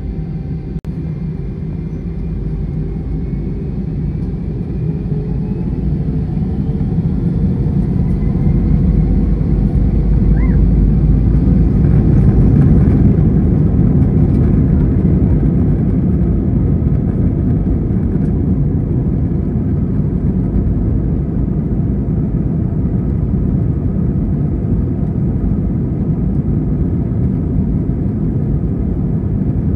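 Airbus A320-200 jet engines heard from inside the cabin, spooling up to takeoff thrust with a faint rising whine in the first few seconds, then a loud steady rumble of engines and wheels as the airliner rolls down the runway for takeoff. The noise builds for about ten seconds and then holds.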